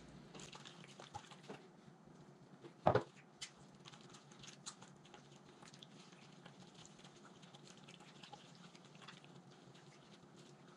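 Gloved hands turning chicken thighs in a wet marinade in a glass baking dish: faint squishing and patter of small clicks, with one louder knock about three seconds in.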